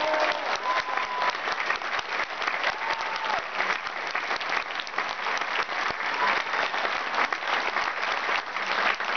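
Large concert audience applauding steadily, dense clapping that keeps an even level throughout.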